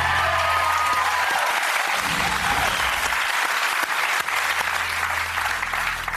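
Studio audience applauding loudly, with a few whoops and cheers in the first second or so.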